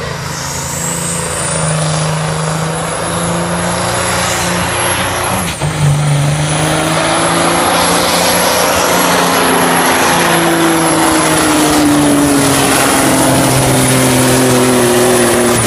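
Diesel pulling tractor at full throttle, dragging the weight sled down the track, with a high whistle that climbs over the first couple of seconds and then holds. The engine sound dips briefly about five and a half seconds in, then comes straight back up.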